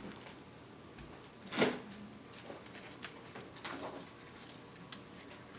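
Fork and knife working at steak in a plastic takeout container: a sharp scrape about a second and a half in, then lighter clicks and scrapes.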